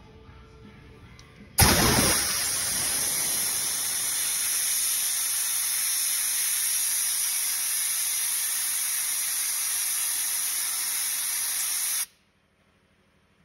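Compressed-air blow gun hissing steadily while blowing chips and dust off a freshly turned copper motor commutator. It starts abruptly about a second and a half in and cuts off sharply near the end.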